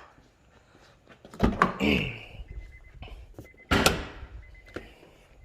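Two heavy thunks from a car's hood being lowered and shut: one about a second and a half in, and a louder one near four seconds. A faint, thin high tone comes and goes between them.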